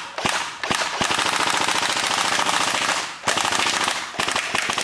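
Airsoft AUG rifle firing: a few single shots about a quarter to half a second apart, then a rapid full-auto burst of about two seconds, a short break, and a second burst of just under a second.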